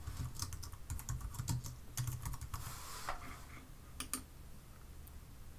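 Faint computer keyboard typing, a quick run of keystrokes for about three seconds, then a sharp double click about four seconds in.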